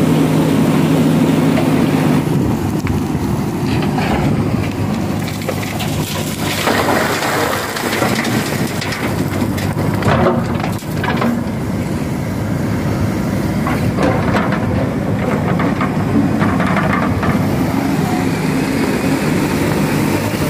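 JCB backhoe loader's diesel engine running steadily as it works, with stones and gravel crunching and clattering at intervals through the middle as the bucket digs and loads river stones into a steel dump-truck bed.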